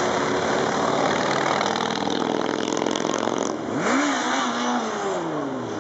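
Several motorcycles riding past one after another, their engines running. About four seconds in, one bike's engine note rises and then falls away as it goes by.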